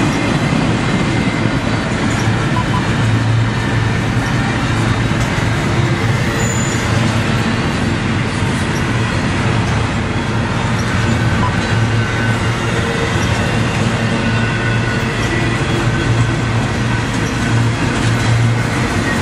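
Double-stack intermodal container train rolling past close by: a steady, unbroken noise of steel wheels on rail, with a strong low hum underneath.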